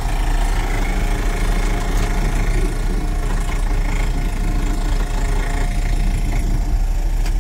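1979 Ford F600's 370 Lima V8 idling steadily, heard from inside the cab, with the heater blower motor running; the owner is thinking of replacing that blower motor.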